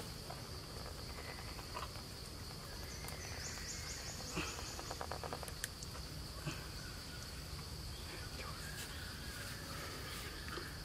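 A steady, high-pitched insect drone from the forest, with a few faint scattered clicks and rustles.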